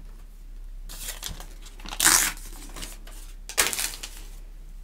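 A paper sheet being torn off a tear-off desk calendar, in three short rips and rustles with the middle one loudest.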